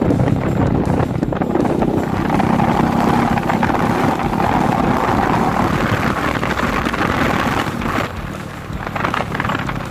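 Suzuki Smash motorcycle's small four-stroke single-cylinder engine running loud through an aftermarket YRS muffler, with wind buffeting the microphone. The engine note rises and holds, then drops off about eight seconds in.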